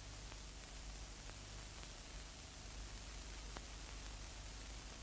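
Steady hiss of an old film soundtrack, with a few faint clicks and crackles; no train sound stands out.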